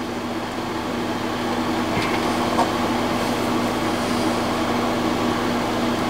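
Steady mechanical hum with a few fixed low tones, like a running air conditioner or fan, with a faint click or two about two seconds in as the hydraulic hand crimper is pumped.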